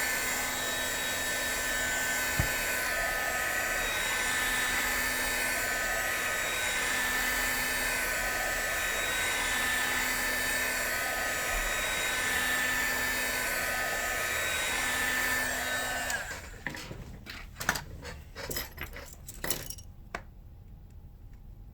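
A hot-air blower running steadily with a faint whine, its sound swelling and fading about every two seconds. It cuts off about sixteen seconds in, followed by a few light clicks and taps.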